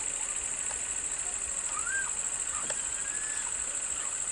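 A steady, high-pitched insect drone, like a cicada chorus, fills the roadside forest air at an even level. A few short, faint bird chirps sound near the middle.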